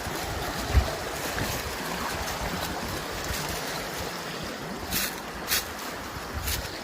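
Creek water running steadily, with low gusty rumble on the microphone, a thump about a second in and two sharp clicks about five seconds in.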